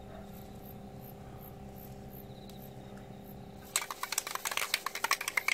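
A faint steady hum, then about two-thirds of the way in a loud, quick run of sharp metallic clicks begins: an aerosol can of foam headlight restorer being shaken, its mixing ball rattling inside.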